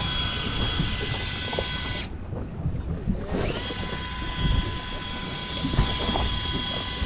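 Electric fishing reel's motor winding in line with a steady whine. The whine stops about two seconds in and spins back up a second later, rising in pitch before it settles. A low rumble runs underneath.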